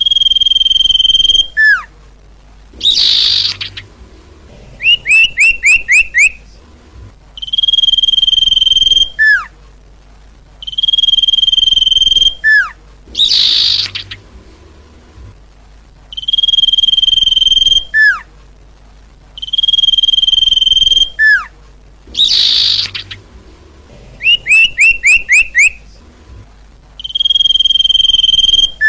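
Sirtu bird song used as a lure call: a repeating sequence of a held high whistle, a quick falling note, a short raspy buzz and a rapid run of five or six rising notes, the whole pattern coming round about every nine seconds.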